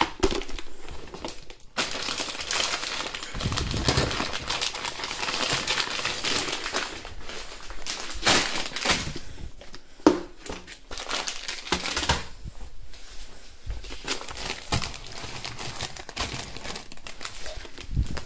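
Plastic snack packets and bags crinkling and rustling as they are handled and packed, with occasional light knocks of items being set down.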